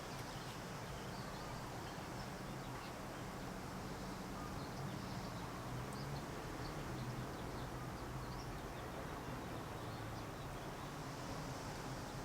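Quiet background ambience: a low steady hum with faint, scattered short high chirps.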